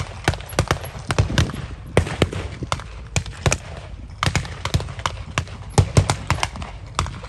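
Blank-fired small-arms gunfire: irregular single shots and short quick strings of rifle and automatic fire cracking out across the field.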